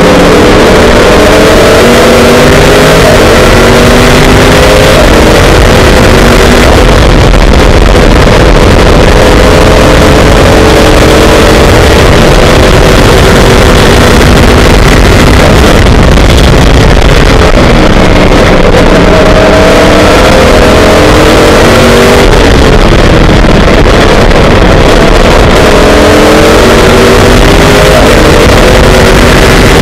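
Onboard sound of an Oreca FLM09 Le Mans prototype's GM V8 engine at racing speed, very loud, its pitch climbing through the revs and dropping at each gear change several times, under heavy wind and road noise.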